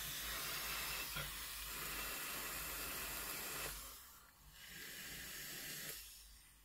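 A long drag on a vape's rebuildable dripping atomiser: a steady hiss of air drawn through the firing coil that stops near four seconds in. A softer hiss of the vapour being breathed out follows for about a second and a half, then fades.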